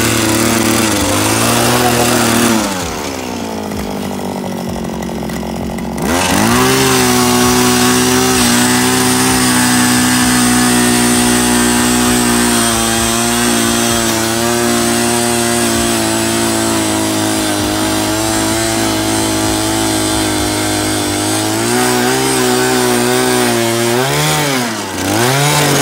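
A small petrol engine running at high speed. Soon after the start it drops back to a lower speed for a few seconds, then revs sharply back up and runs steadily, with two more quick rises and falls in speed near the end.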